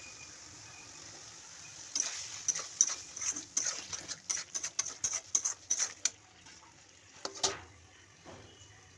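Steel spatula scraping and knocking against a steel kadai as a thick mushroom masala is stirred, a quick run of strokes several times a second. Near the end a steel lid clanks down onto the kadai, followed by a lighter knock.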